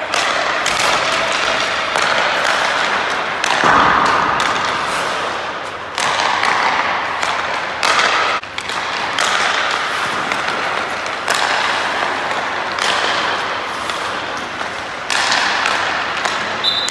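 Ice hockey passing drill: repeated sharp clacks of pucks striking stick blades, with skate blades scraping and carving the ice between them, echoing in a large indoor rink.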